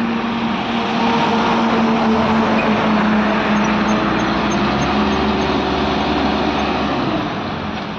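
Diesel engines of ACE hydra pick-and-carry cranes running steadily under load while hoisting a truck, the engine note easing off near the end.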